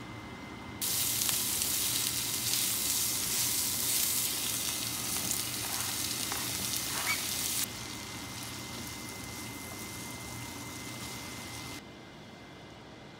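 Pork and sliced garlic sizzling loudly in a hot oiled nonstick frying pan, starting about a second in. Partway through, with onion added, the sizzle drops to a softer level, then stops near the end.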